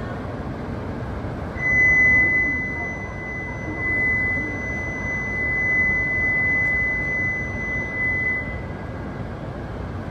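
E8 series Shinkansen horn sounding one long, steady high tone for about seven seconds, starting a second and a half in and cutting off sharply, over the low rumble of the train pulling slowly into the platform.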